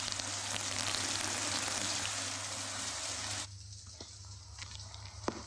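Shower water spraying in a steady hiss, which cuts off abruptly about three and a half seconds in. A few faint clicks follow over a low steady hum.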